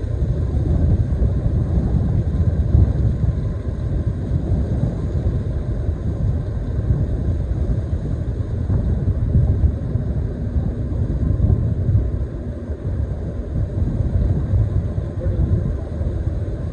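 Deep, steady rumble of the large container ship Ever Fair passing close by, with uneven gusts of wind on the microphone.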